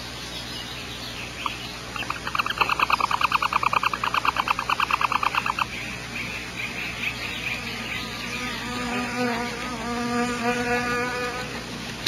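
Barn owls at the nest giving a rapid chittering run of clicks, about ten a second, for nearly four seconds. A few seconds later comes a lower, even buzz lasting about three seconds.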